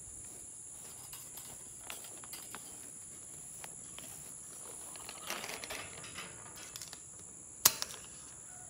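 Steady high-pitched insect chorus throughout, with soft rustling in the middle. Near the end comes a single sharp click: the metal hook of an electric-fence gate handle snapping onto the fence.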